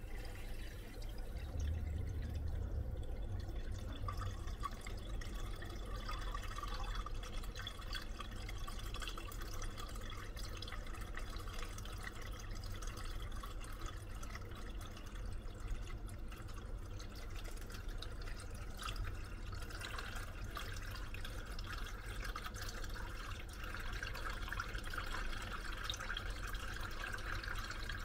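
Kitchen tap running water into a latex balloon full of water beads, a steady rush of water as the balloon fills and swells, a little louder near the end.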